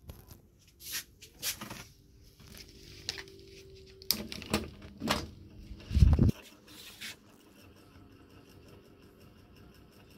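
Small plastic five-bladed ceiling fan starting up: a series of clicks and knocks, the loudest a low thump about six seconds in, then a faint steady running sound with a fast even ticking as the blades turn.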